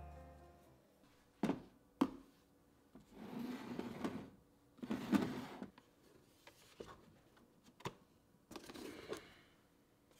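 Joseph Joseph plastic compost bin handled on a wooden table: two sharp knocks, then scraping and small clicks as the bin is moved and its lid lifted open.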